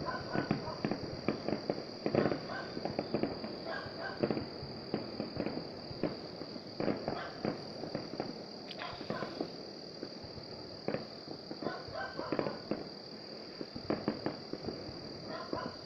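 Distant fireworks popping and crackling in irregular clusters of small bangs, over a steady high-pitched hum.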